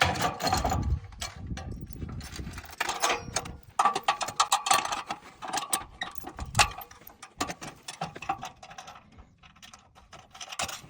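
Metal clinking and rapid clicking of U-bolts and nuts being fitted and tightened onto a rack's latch bracket on a square bumper, with a heavier knock in the first second.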